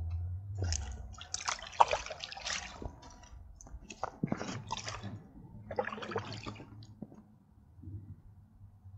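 Irregular small splashes, drips and wet, squishy handling noises as a freshly caught fish is handled at the water.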